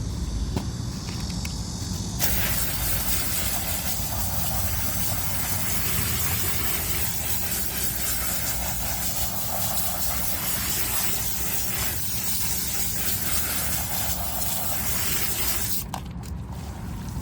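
Water running and spraying in a steady hiss, rinsing soaped bedding. It starts abruptly about two seconds in and cuts off near the end.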